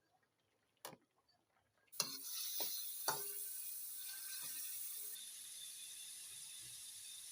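Kitchen cooking sounds: a single click, then a steady high hiss that starts suddenly about two seconds in, with a few knocks and clatters over its start.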